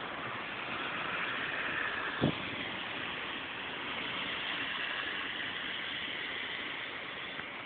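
Heavy rain falling, a steady hiss, with a single short thump about two seconds in.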